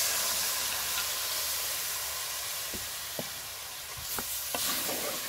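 Water poured onto wheat flour roasted in hot desi ghee, sizzling and hissing steadily as it hits the hot fat in an aluminium pot. In the second half come a few light knocks of the stirring spoon against the pot.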